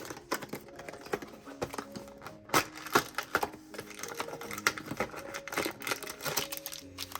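Toy packaging being handled, plastic and paper rustling with many quick crinkles and small clicks that get busier about halfway through. Soft background music plays underneath.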